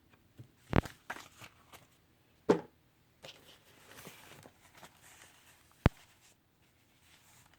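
Packaging and box contents being handled: three sharp clicks or knocks, under a second in, about two and a half seconds in and near six seconds, with soft rustling in between.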